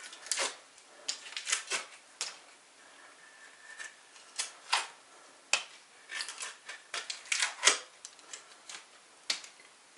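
A knife shaving and splitting kindling off a piece of firewood by hand, giving irregular sharp clicks and cracks, sometimes in quick runs, with the loudest crack about three-quarters of the way through.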